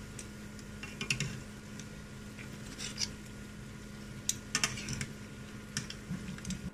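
Donuts deep-frying in a pan of oil, a steady sizzle over a low hum, with a few clusters of sharp clicks from metal tongs turning them.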